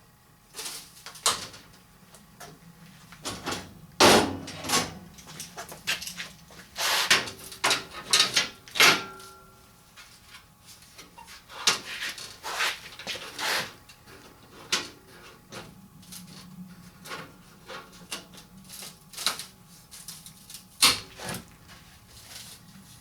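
Irregular knocks, clanks and scrapes of metal door parts and tools being handled on a workbench, with one brief ringing tone after a hit about nine seconds in.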